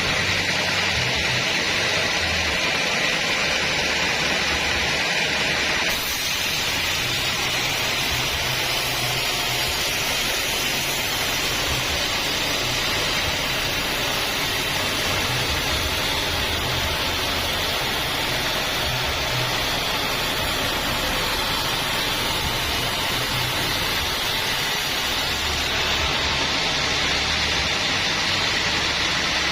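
Homemade bandsaw sawmill running and sawing an acacia log: a loud, steady, even rushing noise of the blade and its drive, shifting slightly about six seconds in.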